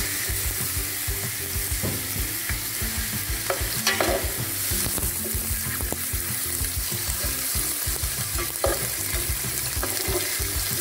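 Beef chunks sizzling in hot olive oil with a sofrito of onion, pepper and carrot in a large aluminium pot, stirred with a slotted metal spoon. A steady frying hiss, with a few short knocks of the spoon against the pot, the clearest about four seconds in and near the end.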